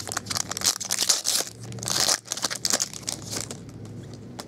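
A stack of Topps Chrome trading cards being shuffled by hand, the stiff cards slid and flicked one behind another: a rapid crackly rustle of clicks, loudest about two seconds in, thinning out toward the end.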